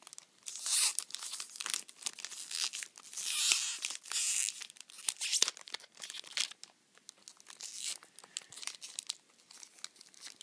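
Tissue paper wrapping around a soap box crinkling and tearing as it is pulled open by hand: irregular rustles and sharp crackles, loudest about half a second in and again around three to four seconds in.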